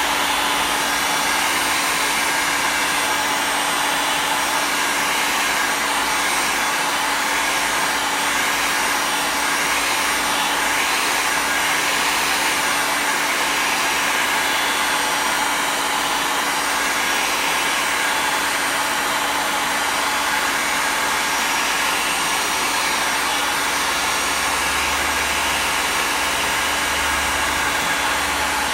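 A 2000-watt heat gun running steadily: an even rush of fan-driven air with a constant motor hum.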